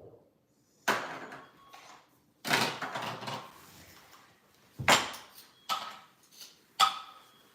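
Clatter of small toy play-food pieces and utensils being knocked and set down on a hard surface. There are about five sharp knocks, with a longer rattling clatter about two and a half seconds in.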